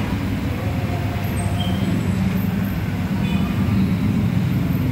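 Pempek deep-frying in a large wok of bubbling oil, stirred with a wire strainer ladle, under a steady low rumble.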